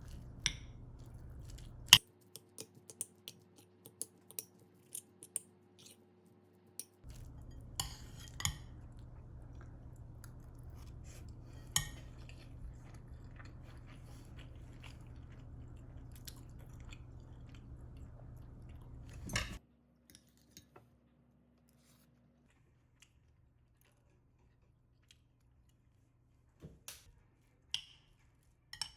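Scattered light clicks and clinks of utensils and dishes, over a steady low hum that cuts out about two seconds in, returns, and stops again two-thirds of the way through.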